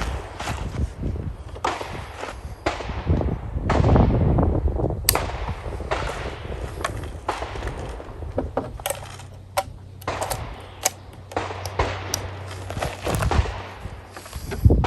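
Gunfire at a shooting range: a string of irregular single gunshots, roughly one a second, each with an echoing tail.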